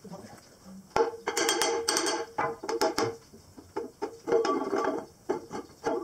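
Hammer striking the steel centre of a sprayer wheel, about ten irregular blows starting about a second in, each ringing with the same metallic tone as the centre disc is knocked loose from the rim.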